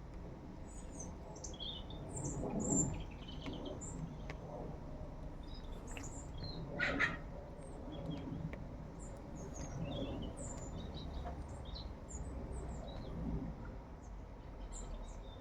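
Small birds chirping, many short high chirps scattered throughout over a low steady background hum. A brief louder low sound comes a little under three seconds in, and a louder, longer call about halfway through.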